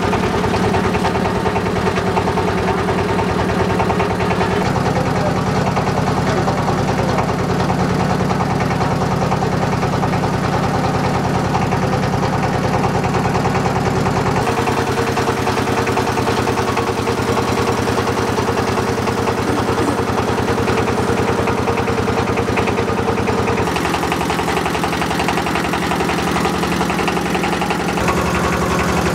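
Motor of a wooden river boat running steadily with a fast, even chugging; its tone changes abruptly a few times.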